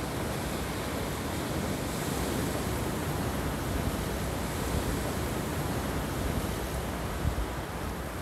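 Sea surf breaking among rocks and washing over a pebble beach: a steady, even rush of waves.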